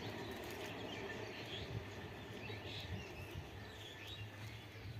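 Small birds chirping in short scattered calls over a steady low rumble.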